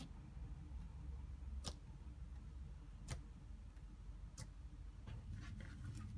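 Faint sharp clicks, one roughly every second and a half, as fingers press into and lift off soft homemade slime made from toilet paper, glue and flour. Near the end a quick run of smaller clicks comes as the slime is gripped and lifted.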